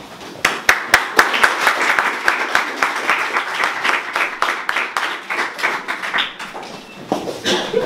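A small audience applauding, starting about half a second in and tailing off near the end.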